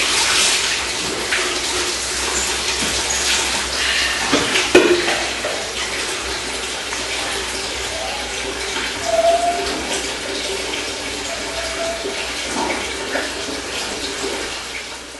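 Water splashing and running in a bathtub, loudest at the start as water is poured over a bather from a plastic dipper. A single knock sounds about a third of the way through.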